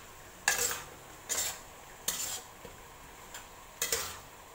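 A cooking utensil stirring chicken pieces in a wok, in about four short scraping strokes roughly a second apart.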